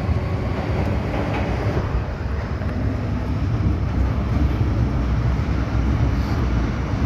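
MTR M-Train metro car running on the Tsuen Wan Line, heard from on board: a steady, loud rumble of wheels and running gear with a faint motor tone over it.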